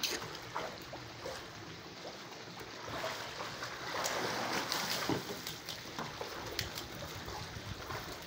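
Pond water sloshing and splashing as two men wade through a shallow concrete catfish pond and drag a seine net through it, swelling about three to four seconds in.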